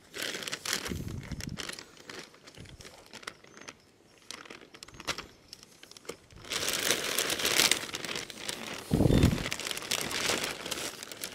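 Plastic bag crinkling and rustling as it is handled, in runs of short crackles that get louder past the middle, with one brief low sound about nine seconds in.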